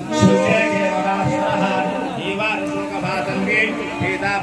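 Voices singing a Hindu devotional chant.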